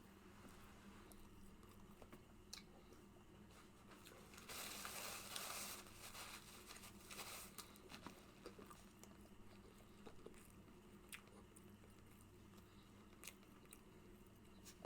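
Faint close-up chewing of a person eating, with a few soft mouth clicks and a brief louder rustle about four and a half seconds in.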